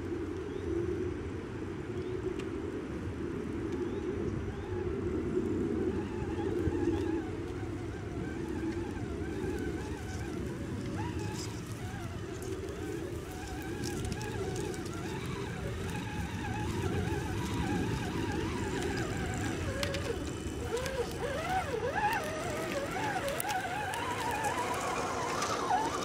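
Electric motors and gearboxes of battery-powered radio-controlled scale crawler trucks whining as they drive over the forest floor. The pitch wavers up and down with the throttle, and the sound grows louder over the last few seconds as one truck comes up close.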